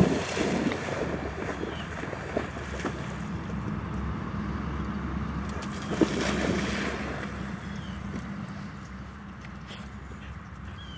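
Dogs splashing through shallow pond water, with the biggest splash about six seconds in, over a steady rumble of wind on the microphone.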